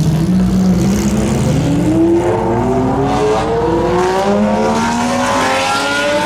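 Porsche sports car engine accelerating hard on track, its note rising through the revs, with a gear change about four seconds in and the revs climbing again.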